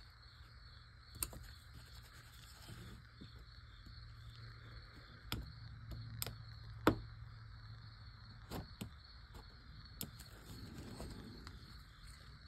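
Hobby knife cutting into a wooden block: a few sharp ticks as the blade tip digs and catches in the grain, the loudest a little past the middle, over a steady low hum.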